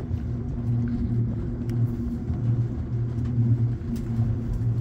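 Aerial cable car cabin riding along its cables: a steady low rumble with a wavering hum and a few faint clicks.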